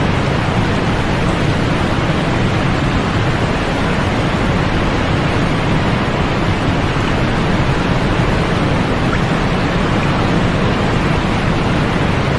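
Steady, unchanging white noise played as a sleep aid: an even hiss weighted toward the low end with little top, no rhythm and no breaks.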